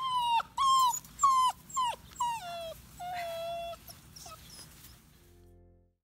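Puppies whining: a string of short, high whines, each dropping in pitch at its end, about two a second, then one longer, steadier whine about three seconds in. The whines fade out about a second before the end.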